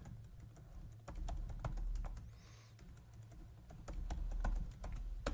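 Typing on a computer keyboard: quiet, irregular keystroke clicks over a faint low hum.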